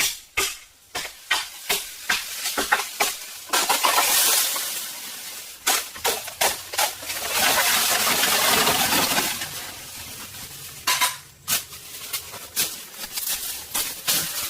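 Food frying in a pan with a steady sizzle in two long stretches, between runs of quick knocks and clatters of cookware and utensils.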